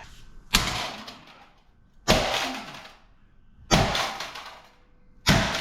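Four hard blows on a metal piece, evenly spaced about a second and a half apart, each ringing briefly.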